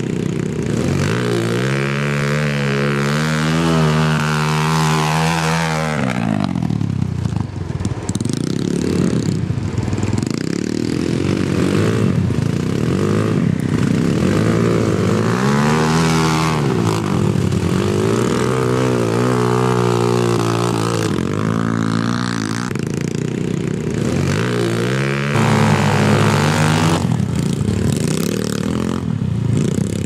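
Motoland XR 250 enduro motorcycles, single-cylinder four-stroke 250s, revved hard again and again, the engine note surging up and dropping back several times as the rear wheels spin in deep mud.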